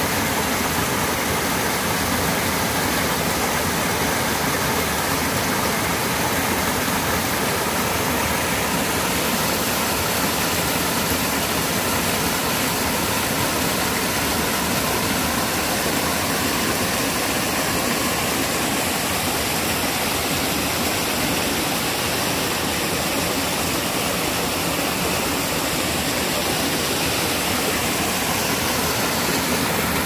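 Small waterfall in a mountain stream pouring over rocks into a pool, a steady rushing of water.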